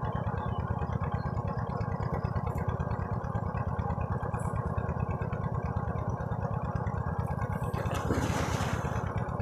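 A steady low drone runs throughout. About eight seconds in comes a big water splash of a person plunging into a muddy pond.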